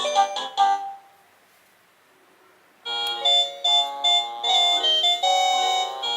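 INTENDVISION SVS00011 wireless doorbell receiver playing its electronic chime tunes: one melody ends about a second in, and after a short pause another tune starts, a quick run of bright electronic notes.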